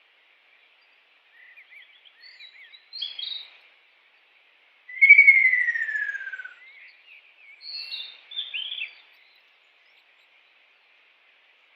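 Kingfisher calling: scattered short chirping notes, then about five seconds in one loud whistle sliding down in pitch for nearly two seconds, followed by another cluster of short, higher notes.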